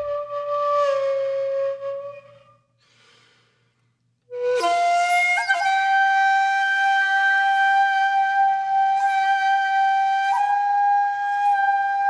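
Music: a slow solo melody of long held notes on a flute-like wind instrument. One note fades out about two seconds in, and after a couple of seconds of silence a new note slides up and is held.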